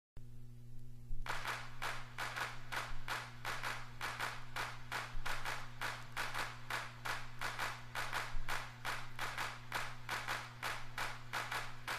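Opening of background music: a rhythmic hand-clap-like percussion beat, about four strokes a second, over a low sustained note, starting about a second in.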